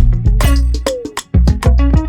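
Background music with a steady beat: drums with pitch-dropping tom or conga hits over a bass line, in a Latin or reggae style.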